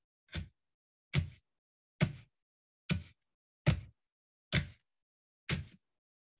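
Paint-soaked fabric flogger slapped down repeatedly onto a painted surface: seven wet smacks, a little under a second apart, as undiluted paint is flogged on in streaky marks.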